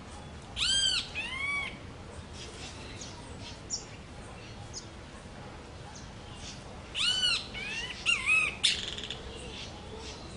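A bird calling: two bouts of ringing calls, each note rising and then falling in pitch, the first bout about half a second in and the second about seven seconds in, with faint short chirps between them and a brief rasping burst right after the second bout.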